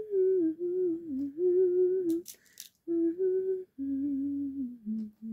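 A woman humming a tune in short phrases with brief gaps between them, the melody stepping down to lower notes near the end.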